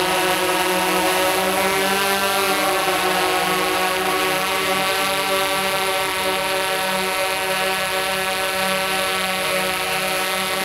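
Tarot X8 octocopter's eight electric motors spinning DJI 1552 propellers, a steady many-toned whine and hum while it flies, the pitch wavering slightly about two seconds in as it manoeuvres.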